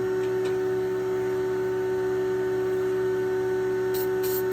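Steady machine hum made of several fixed tones at an even level, with a couple of short high hisses near the end.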